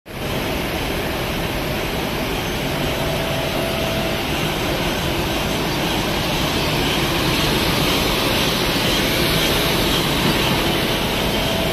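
Eight-colour unit-type flexo printing press running at speed: a steady, even mechanical rumble and hiss from the print units and web rollers, with a faint thin whine now and then.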